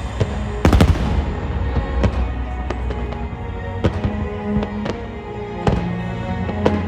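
Fireworks exploding over a music soundtrack in a pyromusical display: a loud cluster of bangs about a second in, then single bangs every second or two while the music plays on.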